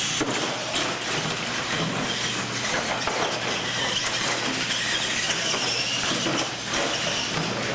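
Two radio-controlled monster trucks racing across a concrete floor, their motors and gearboxes whining steadily with tyre noise.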